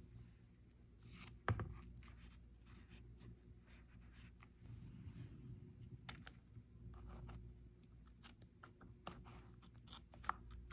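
Quiet desk sounds of journaling: scattered light clicks, taps and paper scratching over a low steady hum, with one sharper knock about one and a half seconds in.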